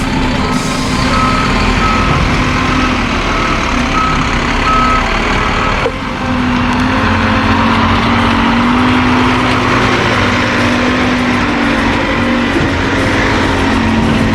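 Concrete pump truck's diesel engine running while its reversing alarm beeps at a steady pace for the first five seconds or so. After that the engine note rises and falls as the truck is driven.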